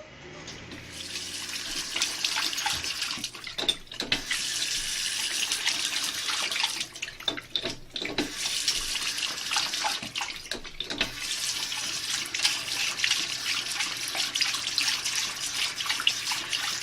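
Water running steadily from a tap into a sink, with a few brief splashy breaks in the stream.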